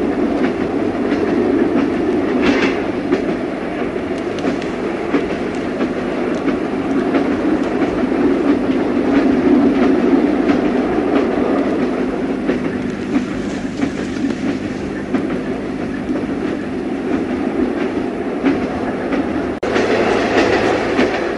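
Passenger train running on the rails: a steady rumble with scattered clicks of the wheels over rail joints. Near the end the sound changes abruptly to a brighter, louder running noise.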